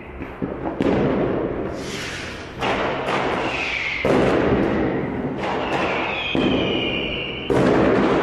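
New Year's Eve fireworks and firecrackers going off in a city street: about five sudden bangs, each echoing for a second or two, with short high falling whistles in between.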